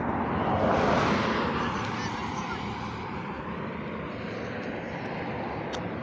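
Vehicle passing by on the highway: tyre and engine noise swells to its loudest about a second in, then fades slowly as it goes away.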